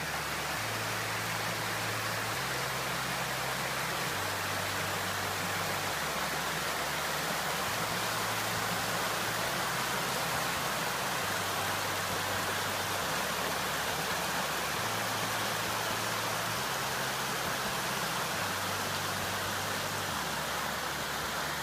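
Small mountain stream rushing steadily over rock cascades and slabs.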